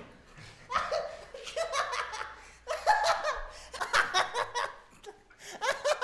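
Men laughing heartily in repeated bursts.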